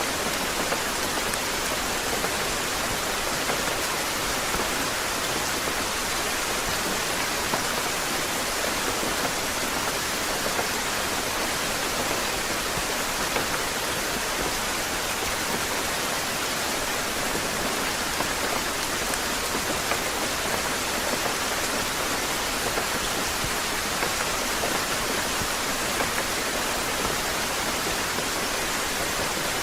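Steady rain falling, a constant even hiss with faint scattered drop patters.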